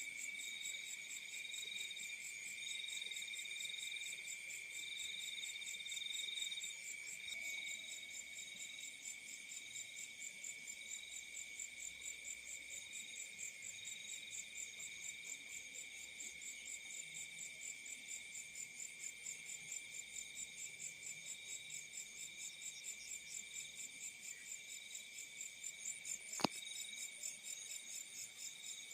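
Chorus of field crickets chirping, several overlapping: a steady trill with a higher rapid pulsing song above it, and a slower pulsed chirp that fades out about seven seconds in. A single sharp click near the end.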